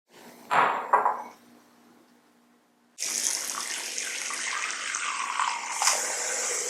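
Two short, loud sounds about half a second apart, then, about three seconds in, water suddenly starts running from a tap into a sink in a steady rush.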